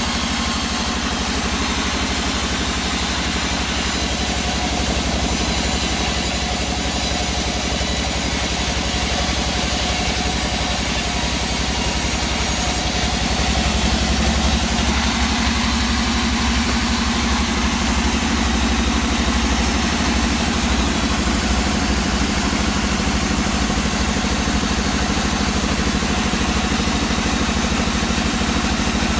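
Engine of wood-sawing machinery running steadily at an even speed.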